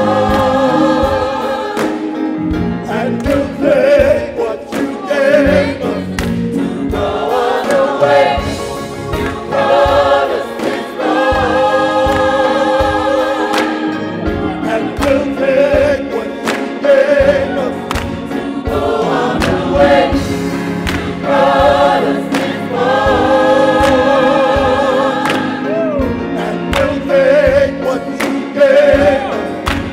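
Gospel choir singing in harmony, backed by instruments with a steady beat.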